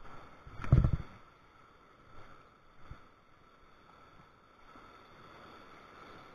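Small waves washing up on a sandy beach, with one brief loud bump just under a second in.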